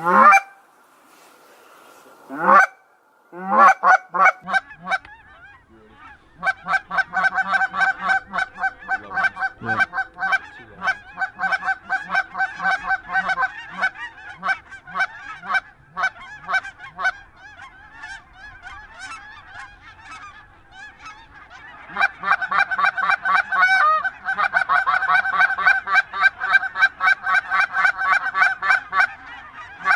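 Goose honking and clucking: two loud drawn-out honks near the start, then a fast, steady chatter of short honks, several a second, in two long runs.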